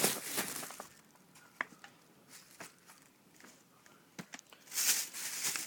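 Plastic bags rustling and crinkling in two bursts, near the start and near the end, with a few light knocks as cardboard firework cakes are handled.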